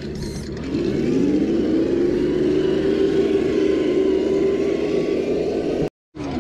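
Electric motor and geartrain of a Traxxas TRX-4 scale RC crawler whining under throttle, the pitch rising about a second in and then holding steady. The sound cuts out briefly near the end.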